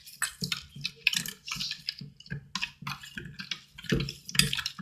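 Sticky glue-and-saline slime mixture being stirred, with irregular wet clicks and squelches as it is worked around.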